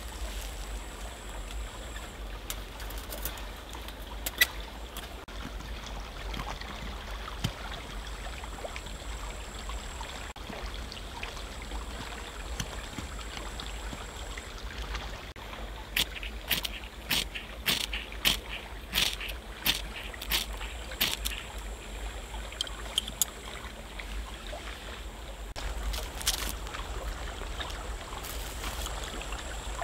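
Stream flowing steadily, with a run of sharp clicks and knocks about halfway through.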